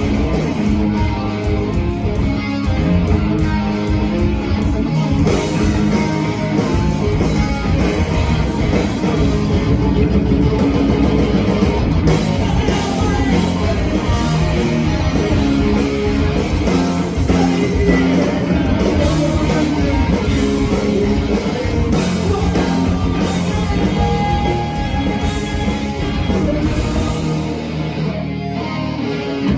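Rock band playing live and loud, guitars and drum kit going full tilt. The lowest bass drops away for a moment near the end before the full sound returns.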